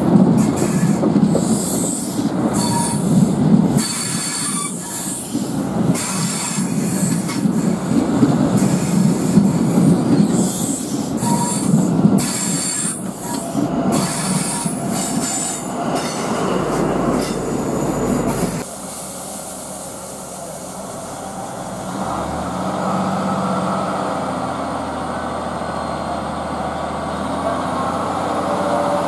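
A train running through the station, its wheels squealing and clattering on the rails. About two-thirds of the way through, the sound cuts off abruptly to a quieter steady hum.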